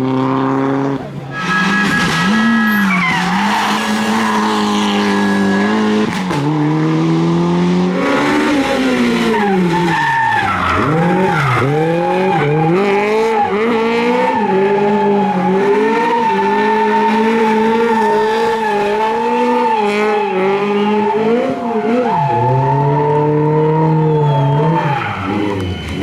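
Rally car engine revving hard, its pitch climbing and dropping again and again as the car is driven flat out, with tyres squealing through long slides.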